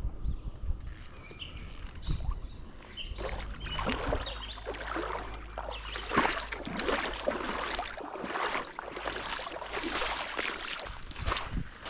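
Footsteps wading through shallow creek water: a run of irregular sloshing splashes, starting a few seconds in.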